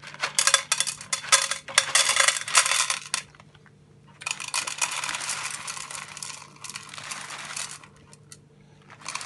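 Cocoa nibs rattling in a container as it is handled and tipped: a dense clatter of small clicks for about three seconds, then a steadier rattling rustle for about three more, and a short burst near the end.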